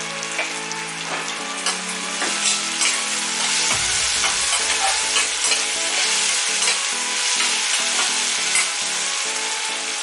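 Chopped vegetables sizzling in hot oil in a stainless steel kadai while a steel spatula stirs them, with many short scrapes and taps of the spatula against the pan.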